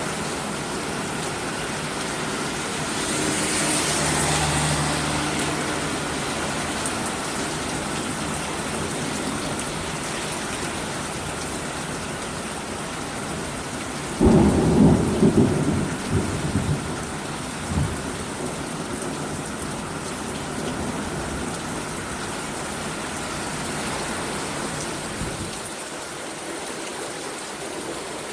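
Heavy rain pouring down with a steady hiss. About halfway through, a sudden loud thunderclap breaks in and rumbles on in a few peaks for about three seconds.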